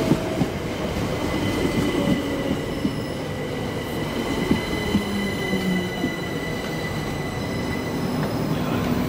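Southern Class 377 Electrostar electric train moving slowly alongside the platform as it slows down. It gives a motor whine that slowly falls in pitch and a steady high squeal, with occasional clicks of the wheels.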